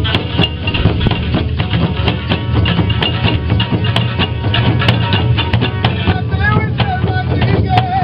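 Folk music played outdoors: several hand-held frame drums beaten in a fast, dense rhythm, with a lute-like plucked string instrument. Near the end a voice starts singing a held, wavering note.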